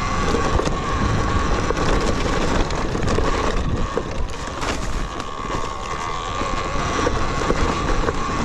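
Talaria Sting electric dirt bike riding up over rocks: a steady high motor whine under wind noise on the microphone, with scattered knocks and rattles from the bike.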